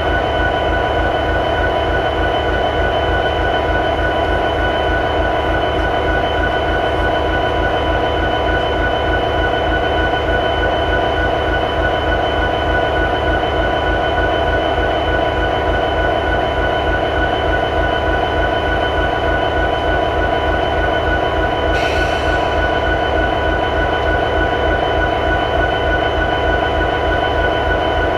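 EMD SD70ACe locomotive's 16-cylinder two-stroke EMD 16-710 diesel prime mover idling steadily: a fast, even low throb with constant whining tones above it, recorded with added bass. A brief faint hiss comes about two-thirds of the way through.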